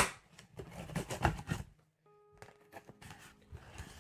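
Cardboard box being cut open: a blade sliding along the packing tape with short scrapes and cardboard rustles for the first second and a half. Faint background music with held tones follows.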